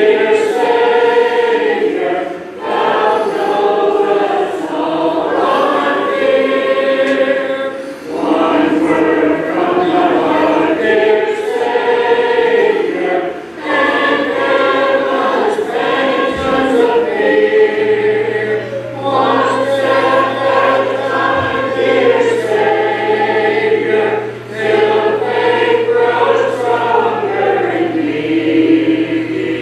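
Church congregation singing a hymn a cappella, men's and women's voices together, in phrases broken by short pauses for breath.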